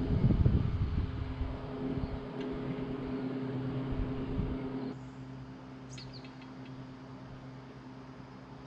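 Chairlift running, a steady mechanical hum from the cable and sheaves, with wind rumbling on the microphone in the first couple of seconds. The sound drops in level about five seconds in, and a couple of short high chirps follow.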